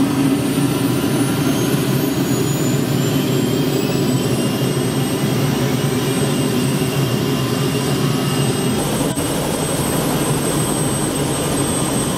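Helicopter turbine engine running, heard from inside the cabin: a steady high whine over a low drone, the whine rising slightly in pitch over the first few seconds. The sound shifts in character about nine seconds in.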